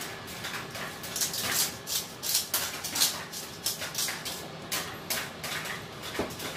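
Hand spice grinder twisted in quick turns, a run of short gritty crunches lasting a few seconds, then a single light knock near the end.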